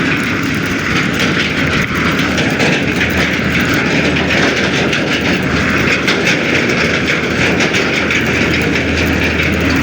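Bicycle rolling over a rough dirt road: a steady rumble of tyres on the rutted surface, with fast continuous rattling of the bike.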